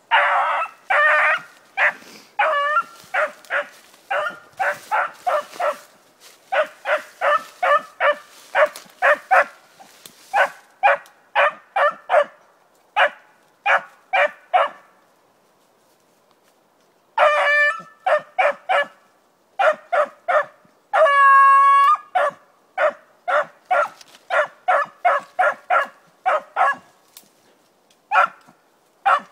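Beagle giving tongue as it runs a rabbit alone: a steady string of short, pitched barks, about two a second. The barking stops for a couple of seconds past the middle, then comes one long held bay, and the quick barks start again.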